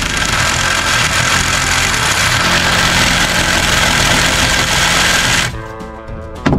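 Reciprocating saw cutting through a wooden deck post, running steadily and stopping about five and a half seconds in, followed by a single sharp knock near the end.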